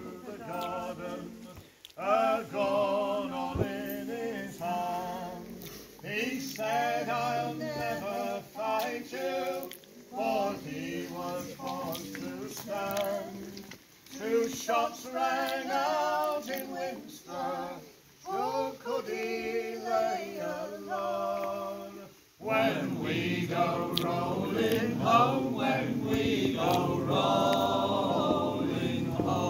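A group of men and women singing an unaccompanied song together, in phrases broken by short pauses for breath. From about two-thirds of the way through the singing becomes fuller and louder.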